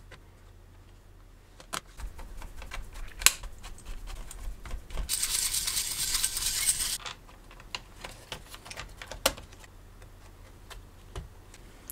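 Small metal and plastic laptop parts clicking and tapping as a heatsink and cooling fan are fitted back into an open laptop, with about two seconds of steady brushing hiss in the middle as a brush is swept over the fan.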